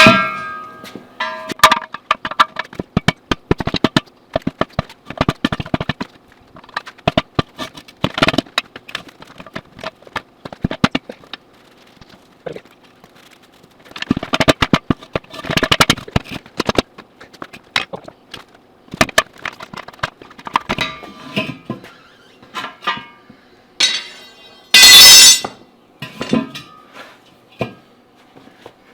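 Irregular metallic clanks, clinks and knocks of steel tools working a tire off a steel backhoe rim. Some strikes leave a short ring, and the loudest comes right at the start. About 25 seconds in there is a loud hiss lasting about a second.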